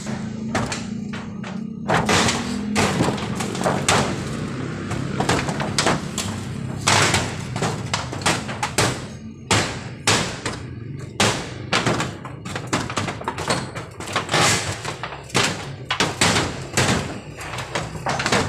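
Irregular knocks and bangs on corrugated metal roofing sheets as a roof is pried apart and dismantled, coming every second or so.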